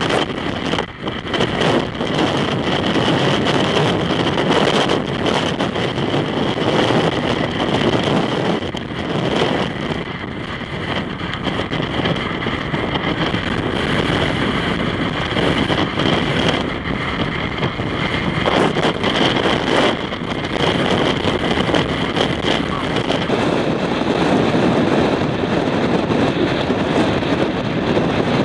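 Strong wind blowing across the microphone in uneven gusts, mixed with vehicles running on the highway.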